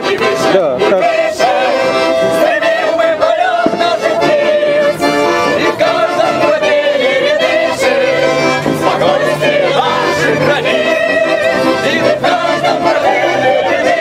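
A group of voices singing a song together to two accordions, the melody wavering over the accordions' steady sustained chords.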